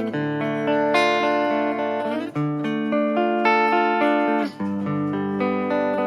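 Harley Benton ST80 FR HH electric guitar played through a Fractal Audio FM9 modeler: ringing chords that change every half second to a second, with a short gap about four and a half seconds in.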